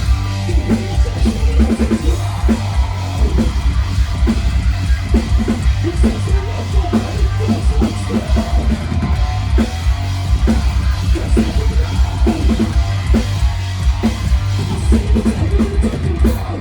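Live metalcore band playing an instrumental passage: heavy distorted guitars and bass under fast, pounding double-kick drums, loud through a fan's recording. The music stops abruptly at the very end.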